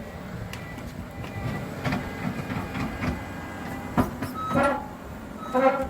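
Skid steer running while its bucket scrapes and knocks through demolition debris, with a few sharp knocks and short squeals near the end.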